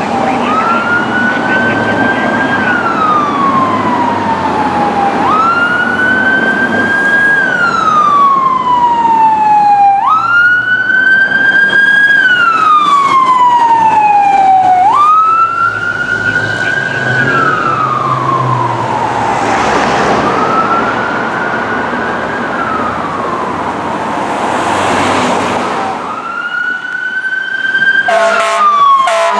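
Fire engine siren wailing in about five-second cycles, each a quick rise and then a slow fall, over the diesel rumble of a 1999 Pierce Dash pumper as it passes. A few short bursts of another tone break in near the end.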